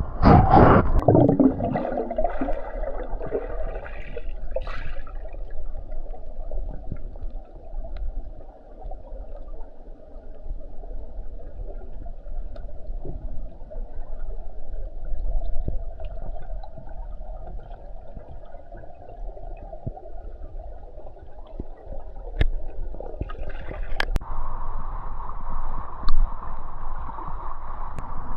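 Water gurgling and sloshing, with a loud splash-like surge in the first two seconds and a few sharp knocks about two-thirds of the way through.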